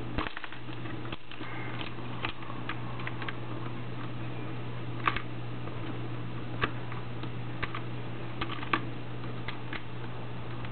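PIC snap mousetrap being handled and set: scattered light clicks and ticks of its parts, about ten in all, the sharpest about five and nine seconds in, over a steady low hum.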